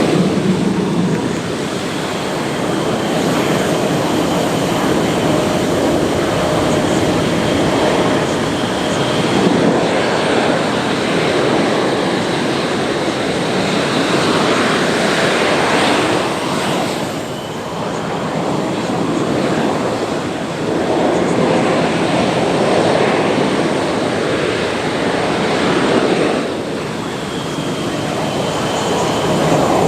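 Twin-turbofan jet engines of Blue Angels F/A-18 Super Hornets, a loud continuous roar that swells and eases several times, with a faint high turbine whine at times.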